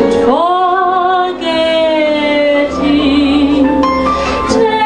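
A woman singing a slow sentimental ballad over a backing accompaniment. She glides up into a long held note with vibrato at the start, then moves on to further held notes.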